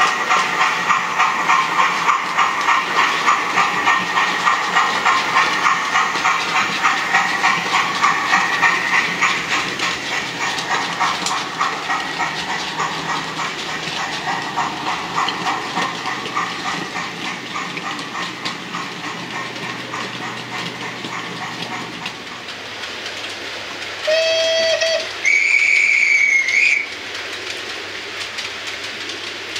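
Steam locomotive chuffing in a steady rhythm of about two beats a second, with rail clatter, easing off in loudness after the first ten seconds. Near the end, two whistle blasts: a short lower one, then a longer, higher one.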